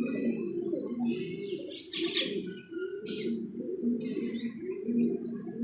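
Several pigeons cooing at once, overlapping low warbling coos, with higher chirps and two short rustling noises about two and three seconds in.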